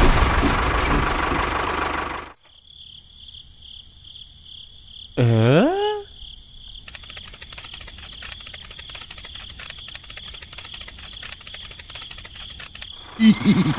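A loud noisy rush cuts off about two seconds in and gives way to a steady high-pitched insect-like chirring. Over it come a short rising swoop of tones and then fast continuous clicking. Near the end a small engine starts running with a knocking beat.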